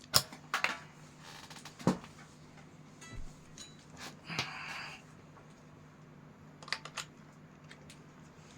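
A few sharp clicks and knocks of a guitar being handled, with a short rustle about four seconds in, over a faint steady hum from the guitar amplifier.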